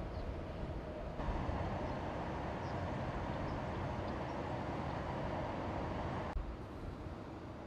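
Steady outdoor background noise, a low rumble with a hiss over it, that steps up about a second in and drops suddenly near the end.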